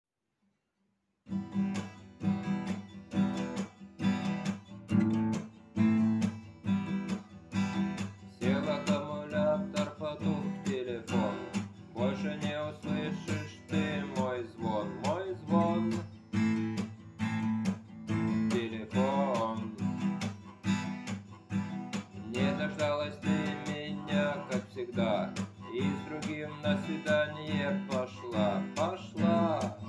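Acoustic guitar strummed in a steady rhythm, starting about a second in; from about eight seconds a voice sings over it.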